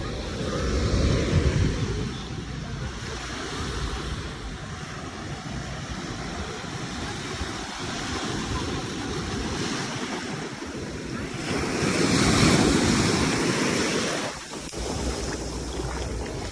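Sea waves washing onto a beach, a steady rush of surf that swells louder about a second in and again around twelve seconds in, with wind buffeting the microphone.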